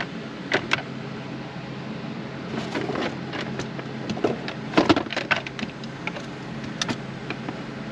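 Hard clicks and knocks of tools and parts being handled, with a louder cluster of clattering about five seconds in.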